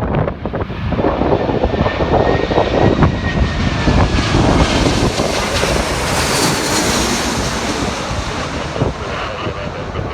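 Jet airliner's engines passing, a loud rumble whose hissing upper part swells about halfway through and then eases off, with a faint high whine sliding slowly down in the first few seconds. Heavy wind buffets the microphone throughout.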